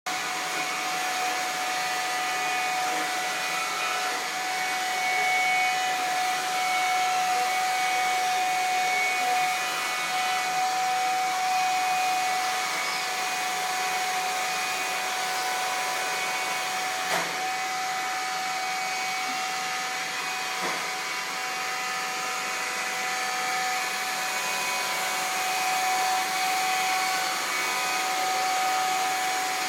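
Roomba robot vacuum cleaner running steadily: an even rushing hiss with a steady high-pitched tone over it. Two short knocks sound a little past the middle.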